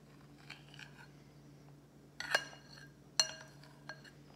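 An eating utensil clinking against a bowl while eating: a few light taps, then two sharper clinks about two and three seconds in that ring briefly.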